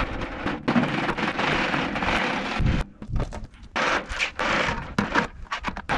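Steel boom lift retract chain rattling and clinking as it is fed link by link down into plastic buckets, with a short lull about three seconds in.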